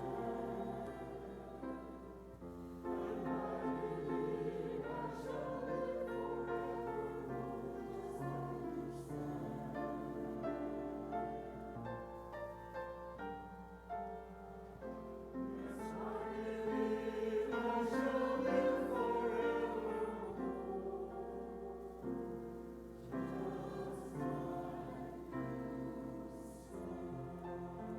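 Church choir singing, accompanied by piano.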